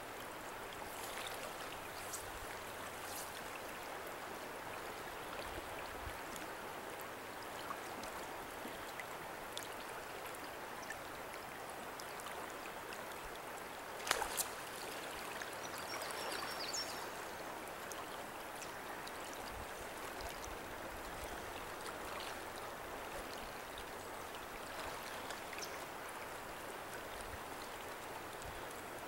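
Steady rush of a rippling river's current flowing past, with one sharp tap about halfway through.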